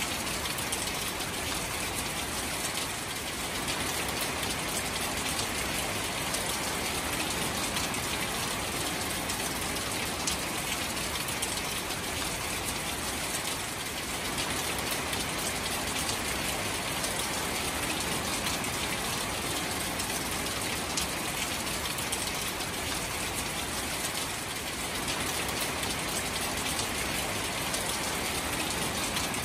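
Steady rain falling on shallow standing water among reeds and grass: a dense patter of drops hitting the water surface.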